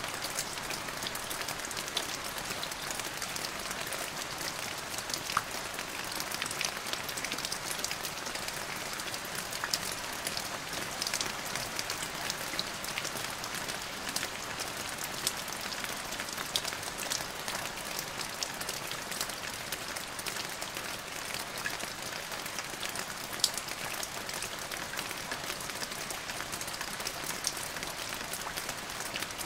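Steady rain falling on a surface, an even hiss with many separate drop hits ticking through it, and no thunder.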